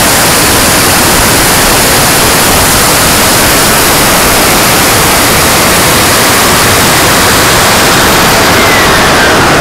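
Loud, steady rushing of wind and a turbine engine heard from a camera mounted on an RC turbine jet in flight, with a faint whine falling in pitch near the end.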